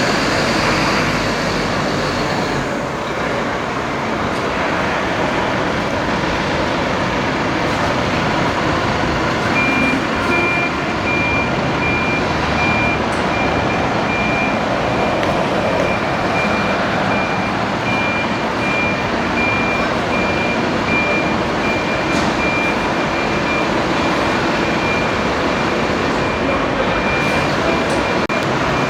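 Fire trucks running, a loud, steady engine noise. About ten seconds in, a high electronic beep starts and repeats evenly.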